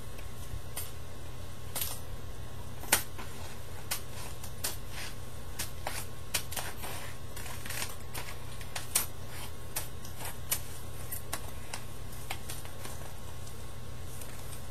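Stiff paper being cut and handled by hand: irregular sharp clicks and crinkles, about one or two a second, the loudest about three seconds in and again about nine seconds in, over a steady low hum.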